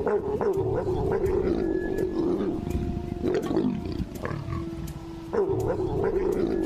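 Pair of leopards growling and snarling while mating: a continuous low, rasping growl that eases off about four seconds in and swells again just after five.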